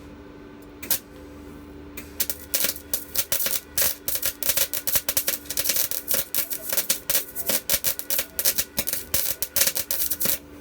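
Electric welder arc crackling as a weld is laid: one short strike about a second in, then rapid, irregular crackling and spitting from about two seconds in that stops suddenly near the end, over a steady low hum.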